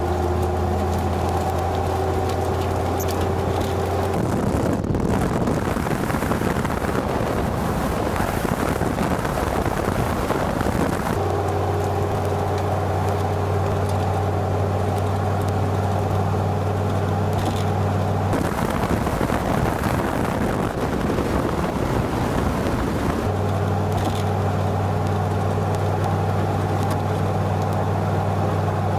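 Pickup truck running at road speed with steady wind and road noise. A low steady hum with a few held tones gives way twice to a plain rushing noise for several seconds, then returns.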